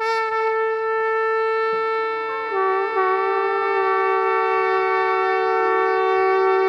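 Conch shell (shankh) blown in one long held note, with a second, lower held note joining about two seconds in. It is the conch call that opens a Ganesh aarti.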